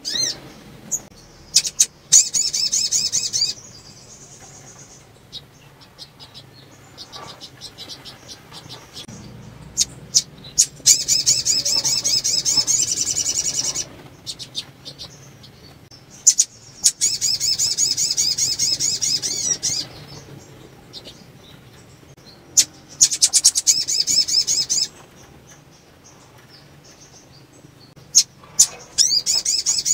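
Female sogon (brown-throated sunbird) calling in bursts of rapid, high chittering trills, five runs of one and a half to three seconds each, with single sharp chips between. This is a female's breeding-condition call, used to stir males into song.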